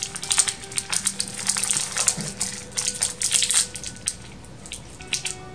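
Plastic chocolate-bar wrapper crinkling and tearing as it is pulled open and peeled back, in a run of quick crackles that thins out about four seconds in.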